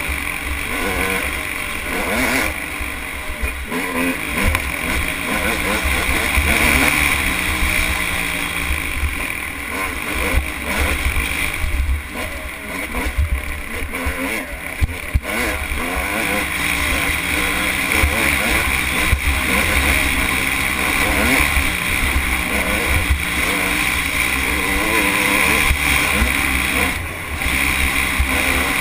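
Dirt bike engine running hard on the trail, its revs rising and falling continually, over a heavy rumble of wind on the mounted camera's microphone. The engine drops off briefly near the end.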